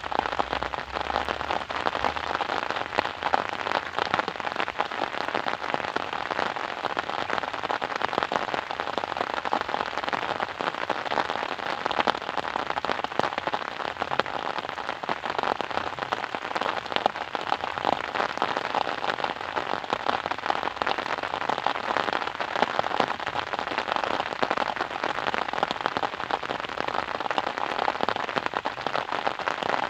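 Steady rain, a dense stream of small drops striking a surface, even throughout with no pause.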